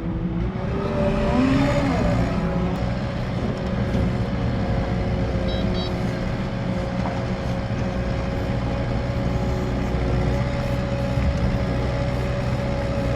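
Vehicle engine running steadily under load while plowing snow, with a steady whine held throughout.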